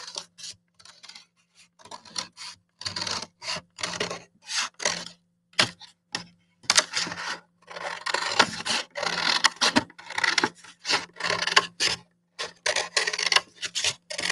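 Scissors cutting through a paper plate in many short, irregular snips, each a brief crisp rasp, as the centre of the plate is cut out. A faint steady low hum runs underneath.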